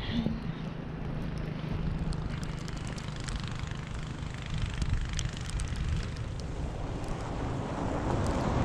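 Snowstorm wind buffeting the microphone in a continuous low rumble, with a steady low hum underneath.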